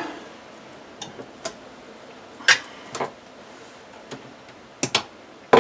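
Short, sharp clicks and snaps of a hand tool being worked on light-fixture wires to strip their insulation: scattered single clicks, a louder one about two and a half seconds in and another near the end.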